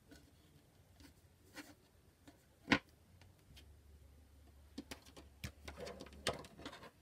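Soft rustling and small taps of hands tying lace ribbon and a sprig of greenery around a wooden cutting board, with one sharp tap about a third of the way in. Near the end comes a quick run of clicks and knocks as a pair of scissors is picked up from the table.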